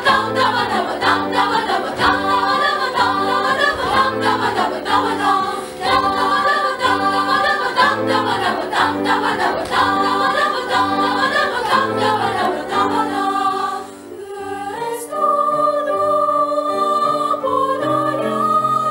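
Children's choir singing with piano accompaniment, in a passage of a medley of Ukrainian folk songs arranged for choir, with no clear words. About 14 seconds in the music dips briefly and goes on with long held notes.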